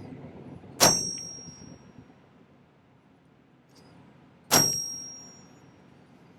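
Two hammer blows on a steel texture stamp pressing a pattern into 18-gauge sterling silver sheet, each a sharp metallic strike with a high ring that dies away over about a second.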